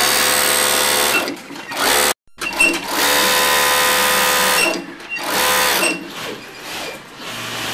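Racing MC S6C sewing machine running in spurts: a run of about a second at the start, a short one near 2 s, a longer run of about two seconds from about 2.5 s, and a brief one near 5.5 s. Between the runs it is quieter.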